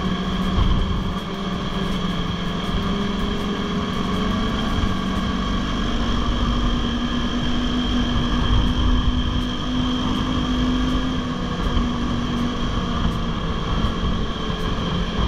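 Ski-Doo 600 four-stroke snowmobile engine running steadily at trail speed, its pitch rising a little as it speeds up midway and easing back near the end, with wind noise on the microphone.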